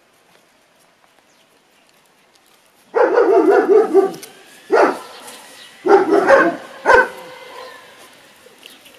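Jack Russell Terrier puppies barking and yapping in play. The first few seconds are quiet, then comes a fast run of barks lasting about a second, followed by three shorter bursts.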